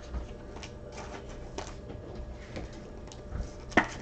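Prizm football trading cards being handled and flipped through: faint scattered clicks and rustles, with a sharper click near the end.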